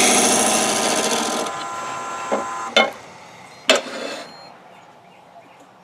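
Turning tool cutting into a wood blank spinning on a Nova wood lathe, enlarging a bore, then stopping about a second and a half in as the lathe motor whines down. Three knocks follow while the tool rest is handled.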